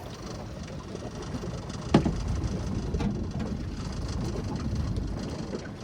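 Low, steady wind rumble on the microphone, with one sharp knock about two seconds in.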